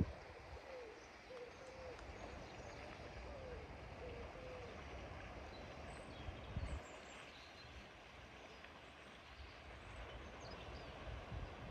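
Sea waves washing steadily at high tide. A pigeon coos softly several times in the first few seconds, with a few faint small-bird chirps.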